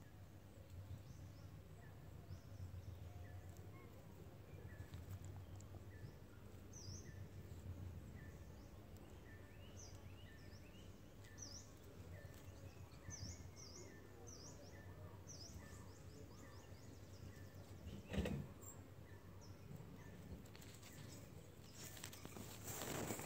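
Quiet outdoor ambience with faint, repeated short high-pitched chirps. A single sharp knock comes about 18 seconds in, and close rustling of fur against the microphone comes near the end.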